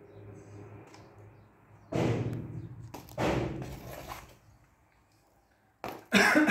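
Two heavy knocks of metal parts being handled on a workbench, about a second apart and each dying away over about a second, then a sharper knock near the end.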